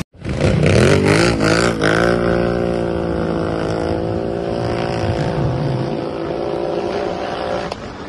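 A vehicle engine revs up and down a few times, then holds a steady pitch before cutting off suddenly near the end.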